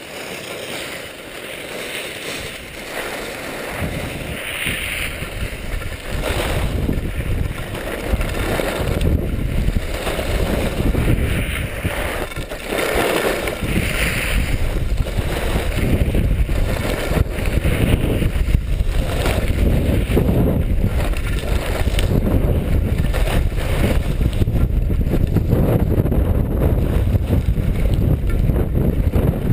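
Wind buffeting a GoPro action camera's microphone while skiing fast downhill, mixed with the hiss and scrape of skis on groomed snow; the rumble grows louder over the first several seconds as speed builds, then stays loud.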